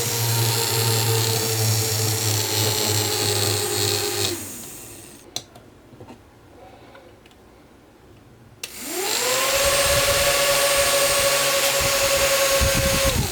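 Homemade mini fan driven by small DC motors, running with a steady whine, then switched off so it winds down about four seconds in. After a click and a short quiet gap it is switched on again and spins back up to speed.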